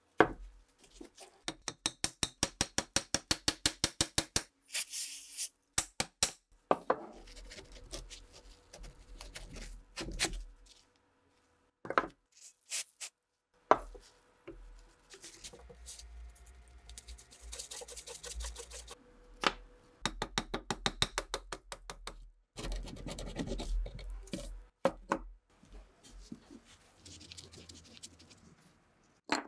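Hand tools working on a rusty old rifle. A quick run of even taps or clicks, about six a second, comes first, then scattered sharp knocks and scraping and rubbing, with a screwdriver turning a rusted screw in the wooden stock near the end.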